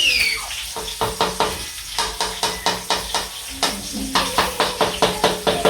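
A spoon stirring and scraping round a cooking pot of frying onions, in quick regular strokes of about four a second, over a steady sizzle.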